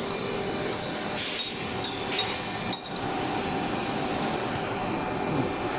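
Metal tools and pump parts clinking a few times in the first half during pump disassembly, over a steady machine hum.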